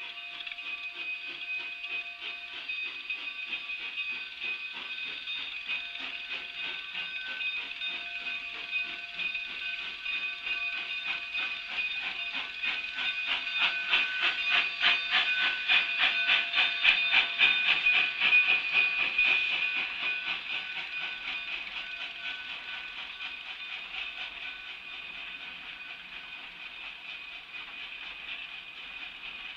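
Cumbres & Toltec K-36 2-8-2 narrow-gauge steam locomotive No. 489 departing with its passenger train: steam hissing, a rapid clatter of the train rolling by, and a steady high squeal throughout. It grows loudest about halfway through as the coaches pass close by, then fades.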